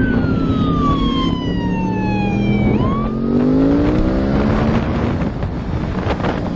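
A police siren wails, falling slowly, turning up again about three seconds in and rising once more near the end. Under it, a sport bike's engine runs and then revs up as the bike accelerates away.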